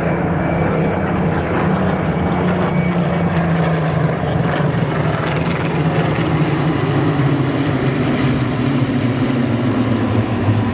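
Piston engines of Second World War fighter aircraft running in a steady, loud drone whose pitch falls slowly and drops lower near the end.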